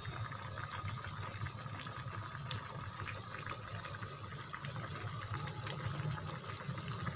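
Pot of clear kimlo soup broth at a rolling boil, bubbling steadily with small pops.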